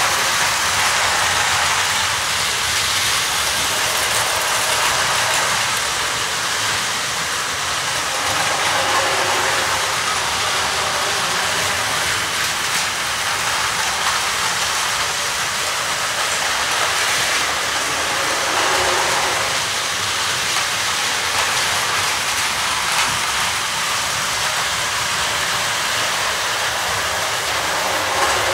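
Plarail battery-powered toy trains running on plastic track, a steady, even whir of small motors and wheels on the track.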